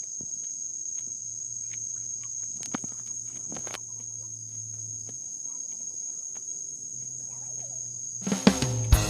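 Insects calling in a steady high-pitched drone, with faint scattered clicks. Near the end, music with a drum beat comes in.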